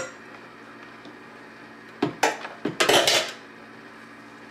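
Short bursts of metal clattering about two seconds in, then a longer ringing clatter around three seconds in: the electric hand mixer's wire beaters knocking against the bowl and hard surfaces as the mixer is lifted out and put aside.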